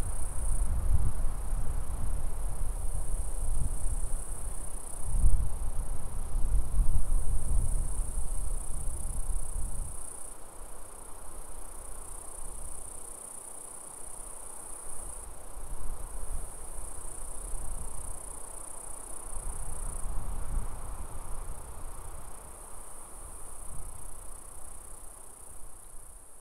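High, steady insect chorus, like crickets trilling. Wind rumbles on the microphone underneath, strongest for the first ten seconds and then easing to lighter gusts.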